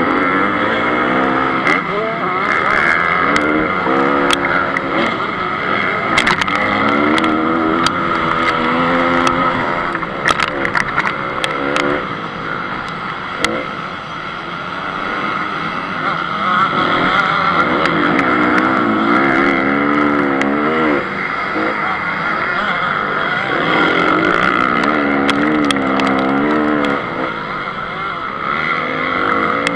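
Honda CRF250 motocross engine, a four-stroke single, heard close up from a camera mounted on the bike, revving up and down over and over as the rider accelerates, shifts and backs off through the track. Scattered sharp clicks are heard, most of them between about 10 and 13 seconds in.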